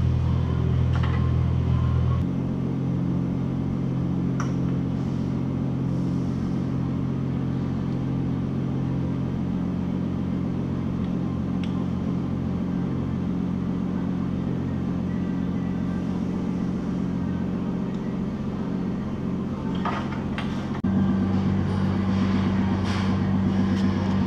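A steady low machine hum of several even tones, which changes in pitch make-up about two seconds in and again near the end. A few light clicks of wiring and connectors being handled sound over it.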